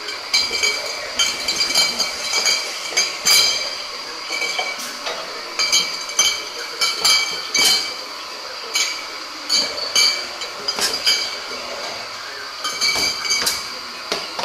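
Glass beer bottles clinking against one another as they are handled and set into a cardboard case: many irregular, ringing clinks.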